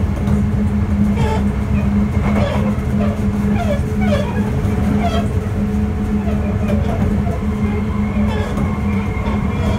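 Running sound of a Sotetsu 8000 series electric train (Hitachi GTO-VVVF) heard from inside the car: a steady rumble of wheels on track under a constant low hum.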